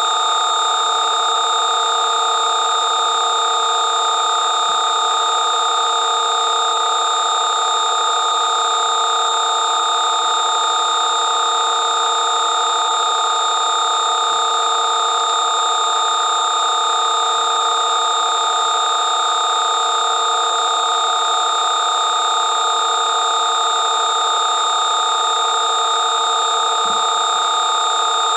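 Synthesized 'Garyaev matrix' sound program: several steady high tones layered over a hiss, holding unchanged and even in loudness, like a continuous electronic buzz.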